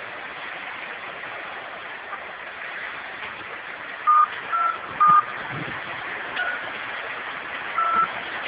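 Steady rushing noise of a mudslide's mud and water flowing beside a railway line. About four seconds in, three short high beeps sound in quick succession at two slightly different pitches, and a fainter and a clearer one follow near the end.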